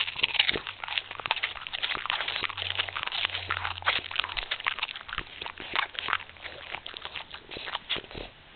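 French bulldog making a dense, irregular run of clicking, crackling mouth and nose noises that stop shortly before the end.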